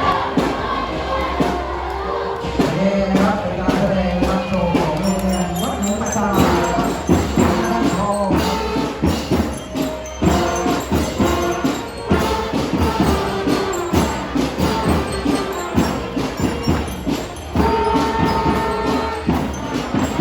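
Music with a steady beat and a melody, with voices over it.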